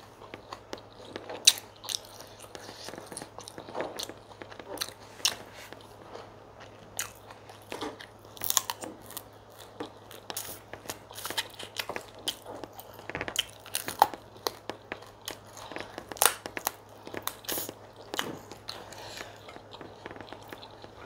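Close-miked eating of chicken pepper soup and fufu: steady chewing with irregular sharp, wet mouth clicks and crunches.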